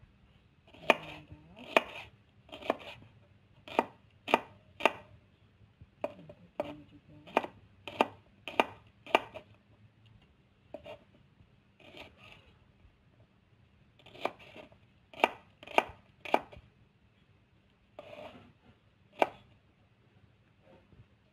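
Kitchen knife slicing shallots and garlic on a wooden cutting board. About twenty separate knocks of the blade on the board come in short runs, with pauses between them.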